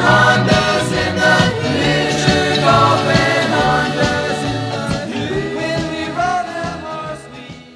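Music fading out over the last few seconds.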